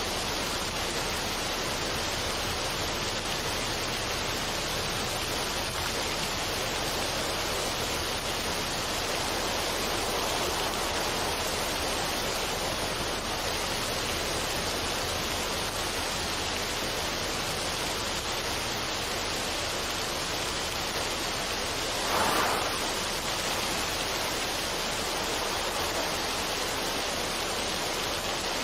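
Waterfall on a mountain stream, water pouring steadily over rocks in an even rush, with one brief louder splash about three-quarters of the way through.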